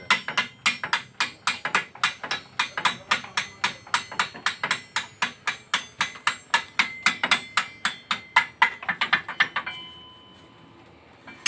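Hammer striking steel on a truck's leaf-spring and axle assembly during a broken-spring replacement, in quick even blows of about five a second that stop about ten seconds in.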